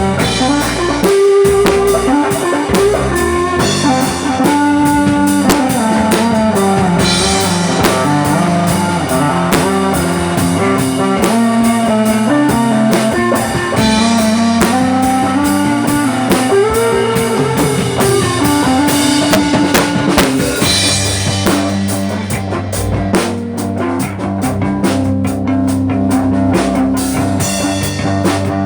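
A rock band playing: electric guitar over bass and a drum kit, with no singing.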